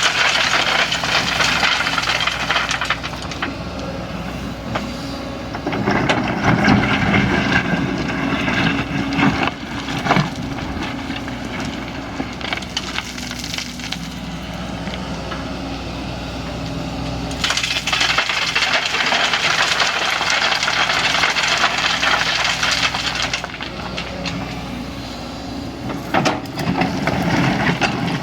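Kobelco excavator's diesel engine running steadily, with three louder stretches of hissing, rattling work noise and a few sharp cracks and knocks.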